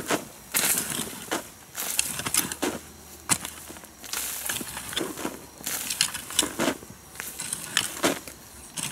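Repeated crunching and scraping strokes, more than a dozen of them at about one a second, some with a sharp click: steady hand work with a tool.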